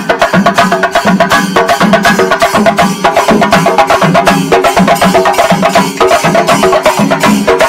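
Music driven by fast, steady percussion, with a pitched melody line over it.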